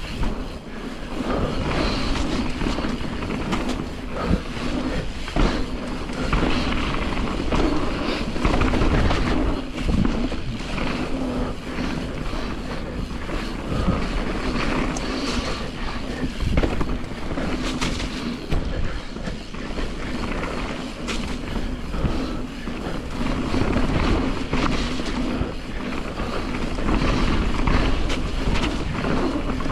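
Nukeproof Giga full-suspension mountain bike riding down a dirt singletrack: a steady rush of tyres on dirt with a run of small clicks, rattles and knocks from the bike over rough ground.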